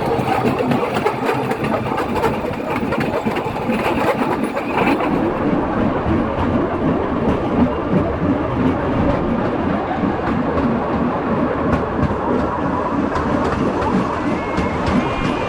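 A vehicle's engine running steadily, with a dense rumbling ride noise; the high hiss over it drops away about five seconds in.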